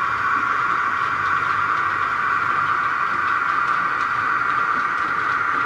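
A steady, even whir of background noise that holds the same pitch and loudness throughout.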